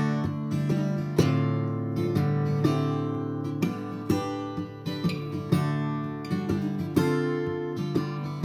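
Instrumental stretch of a song: acoustic guitar strummed and picked, a new chord or note about every half second, with no singing.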